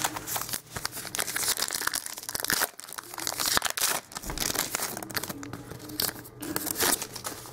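A trading-card pack wrapper being torn open and crinkled by hand, with cards handled: an irregular run of crackling and tearing.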